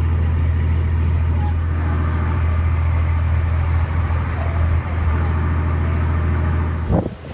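Engine running at a steady low drone, cutting off abruptly near the end.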